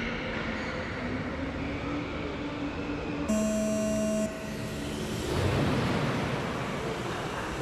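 An electronic start tone sounds for about a second, a little over three seconds in, over steady track noise. About two seconds later a rush of noise swells up as the small electric RC late model cars pull away on the start.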